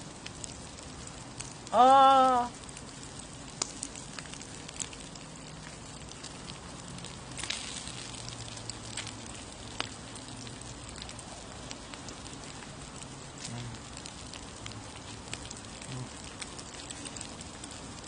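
A man's short, drawn-out vocal exclamation about two seconds in, then chewing on a mouthful of lettuce-wrapped pork belly with scattered small mouth clicks, over a faint steady crackle of pork belly sizzling on the grill plate.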